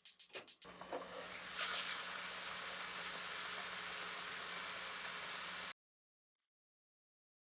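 A quick run of rapid clicks, then a frying pan of shumai sizzling and bubbling steadily, with a louder hiss about a second and a half in. The sound cuts off abruptly near the end.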